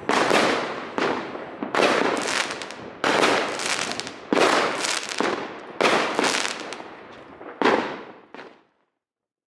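New Year fireworks bursting in the sky: about seven sharp bangs, roughly a second or so apart, each dying away before the next. The sound stops abruptly near the end.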